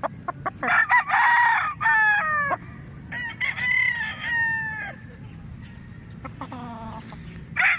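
Gamefowl roosters crowing, several long crows one after another with short clucking calls between.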